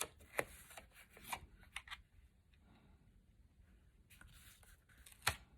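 Cardstock and paper being handled: light rustles and a few small taps, then a louder single tap near the end.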